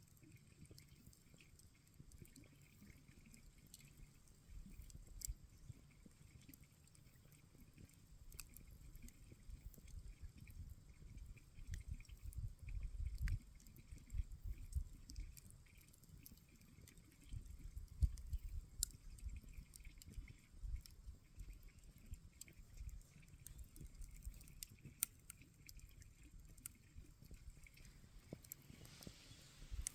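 Wood campfire crackling faintly: scattered sharp pops and snaps over a soft low rumble, the loudest snap about eighteen seconds in.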